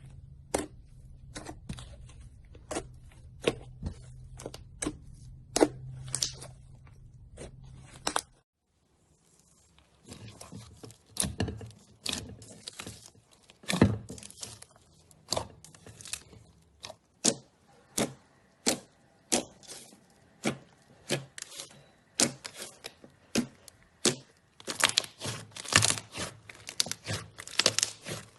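Slime being pressed and worked by hand, giving a long run of sharp, irregular clicks and pops. The sound breaks off briefly about eight seconds in, then the clicking returns and grows denser near the end.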